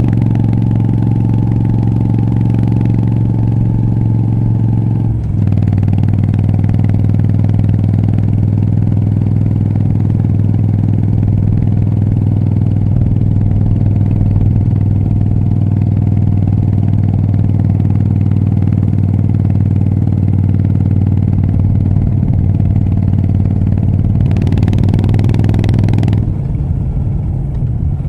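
Moto Guzzi V7 III Rough's air-cooled V-twin through short Mistral exhaust pipes, running steadily at cruising speed. Its pitch drops slightly about five seconds in, then holds steady, and changes again near the end.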